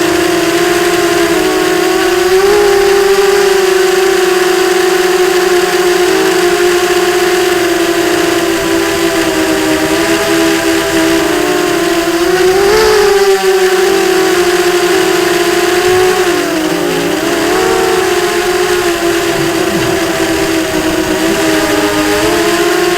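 Brushless motors and propellers of a ZMR 250 racing quadcopter with Sunnysky 2207 motors, whining loudly and continuously; the pitch wavers with throttle, dipping and climbing back a few times.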